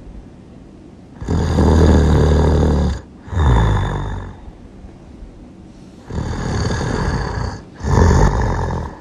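A person snoring loudly in two rounds, each a long snore followed at once by a shorter one.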